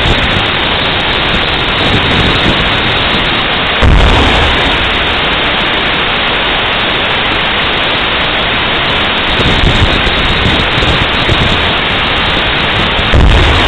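Two heavy booms from an M1A1 Abrams's 120 mm tank rounds during live fire. They come about four seconds in and again near the end, nine seconds apart, and each dies away over about a second. Under them runs a steady, loud rushing noise.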